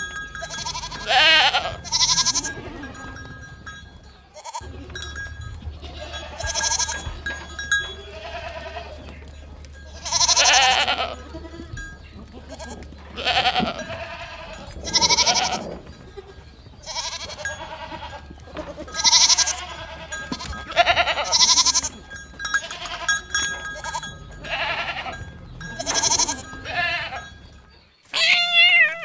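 Goats bleating over and over, with many wavering calls about a second apart, some overlapping. A faint steady ringing tone runs underneath, and the calls stop abruptly near the end.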